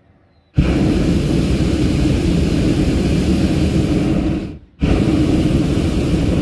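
Hot-air balloon's propane burner firing in two loud blasts: it cuts in sharply about half a second in, breaks off for a moment after about four and a half seconds, then fires again.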